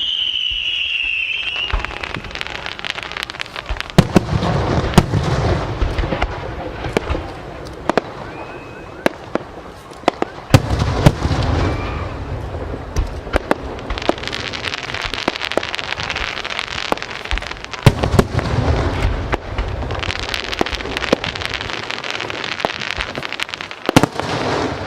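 Aerial fireworks display: shells bursting with sharp loud bangs and low rumble, amid dense crackling. A high whistle falls in pitch in the first second or two.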